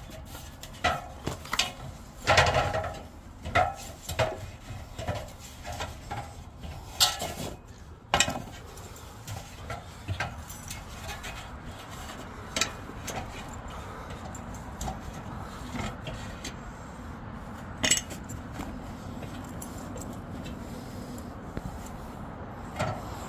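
Metal clinking and clattering of hand tools and small metal parts, with a rapid run of clicks and knocks for the first several seconds, then a steady low background noise broken by a few single clicks. The clatter is typical of working on an air conditioner's electrical panel to swap a failed run capacitor.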